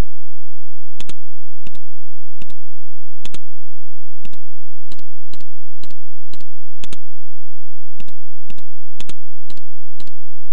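Computer mouse clicking about fifteen times at an uneven pace, each click a quick sharp pair like a button pressed and released, over a faint steady hum.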